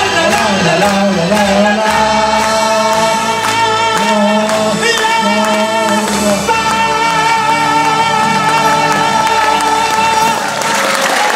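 Live song sung into a microphone over instrumental backing, with long held notes and a steady bass line; the song ends near the end.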